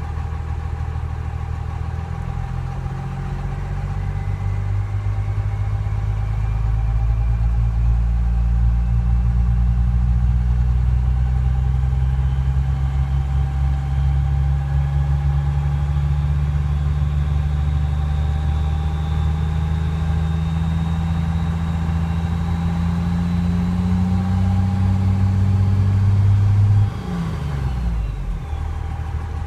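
Cummins diesel engine running, its speed easing up over the first several seconds, holding, then dropping back abruptly near the end. It carries a ticking that comes and goes every few seconds, which the owner cannot place.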